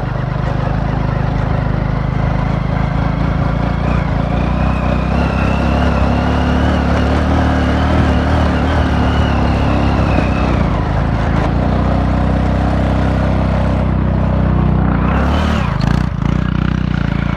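Motorcycle engine running steadily under way on a rough dirt trail, with a faint whine that rises and falls in the middle. The engine note changes near the end.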